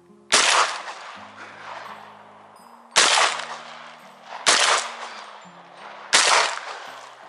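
Shotgun firing four shots, about three, one and a half, and one and a half seconds apart, each with a long fading echo. Guitar background music plays quietly underneath.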